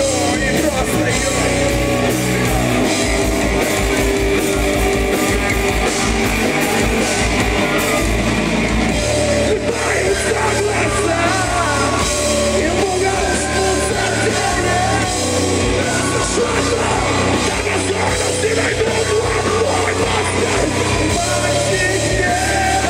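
Loud live heavy rock from a full band: distorted guitars, bass and drum kit playing without pause, with yelled or sung vocals.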